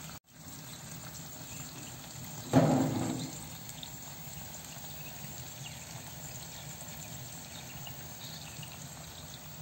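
Chicken and potatoes roasting in a tray in a wood-burning stove's oven, the juices sizzling and bubbling steadily. A brief louder sound comes about two and a half seconds in.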